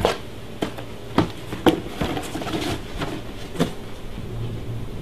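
Cardboard trading-card box being handled and set down on a wooden tabletop: a series of short, light knocks and taps, each a second or less apart.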